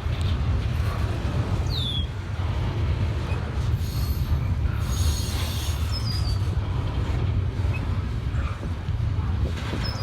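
A long CSX freight train rolling slowly past: a steady low rumble of the cars on the rails, with a few short high squeaks.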